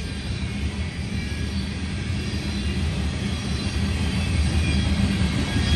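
Freight train cars rolling past, a steady low rumble of wheels on the rails.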